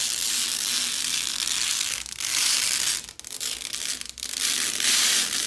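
Protective plastic film being peeled off a computer case panel: a continuous crackling rip, broken by short pauses about two, three and four seconds in.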